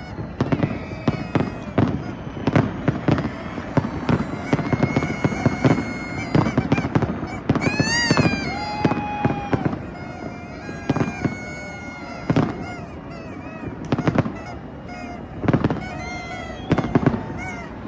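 Fireworks going off in frequent, irregular sharp bangs and crackles over crowd noise, with whistles and horn-like tones held and gliding above them, one rising and falling about midway.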